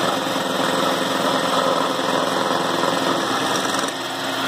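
Milling machine running steadily as its cutter machines into the metal dust-collector housing of a Clarke B2 flooring edger. The cutting noise eases slightly near the end.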